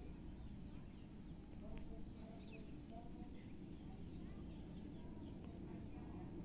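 Faint rural outdoor ambience: a steady high-pitched insect drone with scattered short bird chirps over a low rumble.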